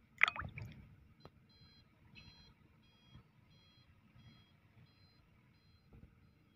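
A brief sharp clatter just after the start, then a vehicle's electronic back-up alarm beeping faintly about twice a second over a low engine rumble.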